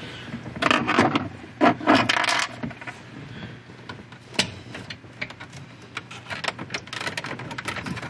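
Hands prying and working at the plastic steering-column cover of a 2000 Chevy Silverado: two loud scraping rattles in the first few seconds, a sharp click, then a run of quick small plastic clicks as the cover is wrestled loose.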